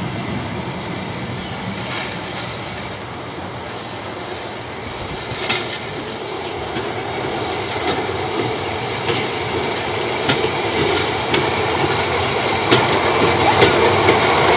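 Golf carts running on railway track, their rail wheels rolling and clicking over the rail joints as the convoy approaches. The sound grows steadily louder, with sharp clicks coming more often over the last few seconds.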